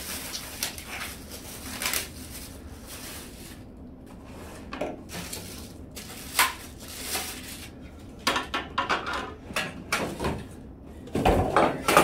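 Plastic packaging crinkling as vacuum attachments are unwrapped, then a run of clacks and knocks as the plastic attachments and aluminium wand tubes are set down on a wooden table, with a heavier knock near the end.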